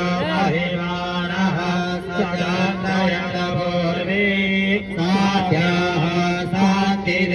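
A man chanting Sanskrit mantras through a microphone and loudspeaker, his voice rising and falling in drawn-out notes over a steady low drone.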